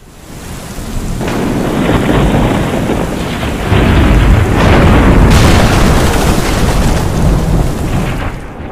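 Thunderstorm sound effect: heavy rain with rolling thunder. It fades in over the first couple of seconds, and the thunder swells about one, four and five seconds in.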